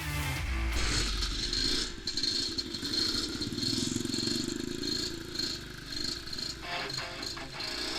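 Motocross bike engine running as the bike rides over a stony track.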